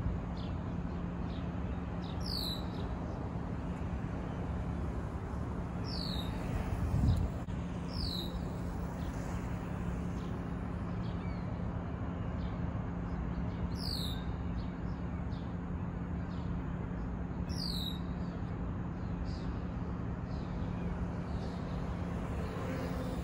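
A bird repeatedly giving a short, high call that falls in pitch, about six times a few seconds apart, over a steady low hum and even outdoor background noise.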